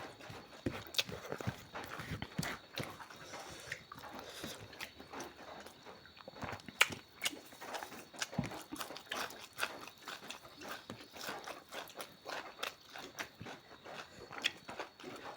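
A person chewing and smacking their lips while eating, heard as many short, irregular wet clicks and smacks.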